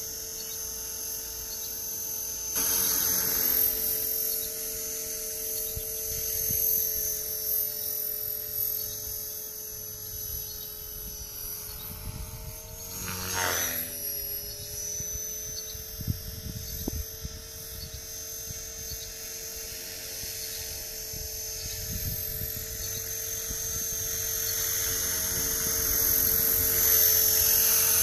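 Blade 450 3D electric RC helicopter in flight, its motor and rotors giving a steady high whine. The pitch dips and swings briefly about halfway through, and the whine grows louder near the end.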